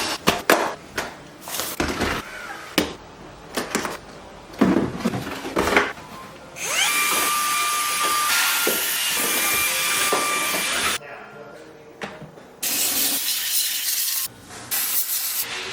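Clicks and knocks of plastic parts being handled, then a small electric motor runs steadily with a faint whine for about four seconds. It stops, then comes on twice more briefly near the end.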